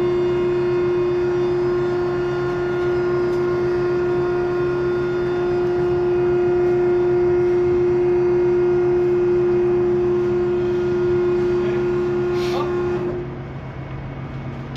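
Electric motor of a Viking Norsafe rescue boat davit running as the davit slews the rescue boat: a loud, steady hum that stops about 13 seconds in.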